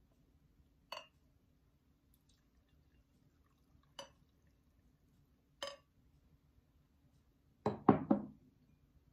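Three light clinks of a glass coffee server against a ceramic mug as coffee is poured, then a quick cluster of louder knocks near the end as the mug and server are set down on a wooden table.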